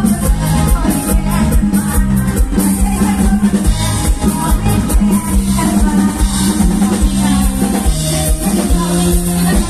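Loud live mor lam band music over the stage sound system, with a steady driving beat and a held, shifting bass line.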